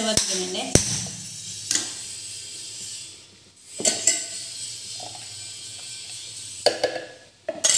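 Kitchen utensils and cookware clinking and knocking now and then during cooking: a few sharp metallic clicks spread unevenly, with quieter stretches between them.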